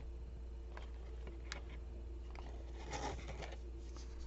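Faint rustling and a few light taps of plastic snack wrappers being handled and set down, with a short burst of crinkling about three seconds in, over a low steady hum.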